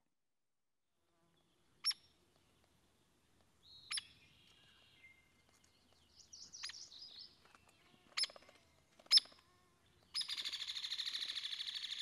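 Recorded hairy woodpecker calls: four sharp, high single call notes spaced out, a softer chatter between them, and near the end a long rattle of very high, metallic notes in rapid repetition.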